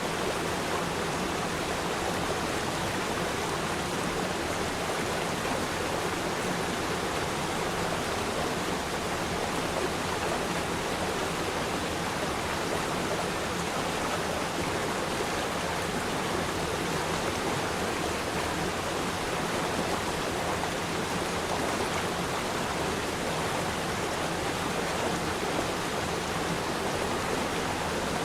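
Waterfall: water falling and splashing, a steady even rush.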